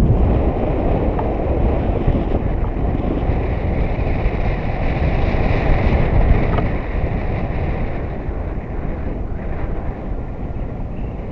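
Wind rushing over an action camera's microphone in paragliding flight: a steady rumble and hiss of wind noise, a little louder in the first half and easing slightly after about seven seconds.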